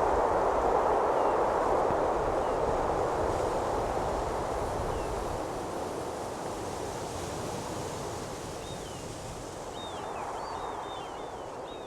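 Outdoor ambience: a steady rushing noise that fades gradually, with small birds chirping several times in the last few seconds.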